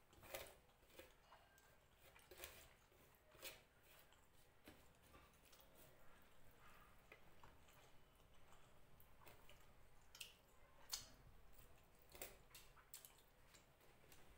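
Faint eating sounds: chewing fish and rice, with scattered soft, wet mouth clicks and smacks at an uneven pace.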